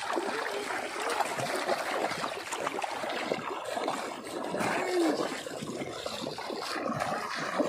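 Shallow water splashing and sloshing without a break as hands grope for fish inside a bamboo polo trap.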